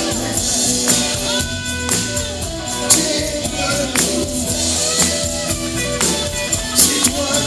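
Live pop band playing the closing bars of a song, with a steady beat of about one strong hit a second under held keyboard chords.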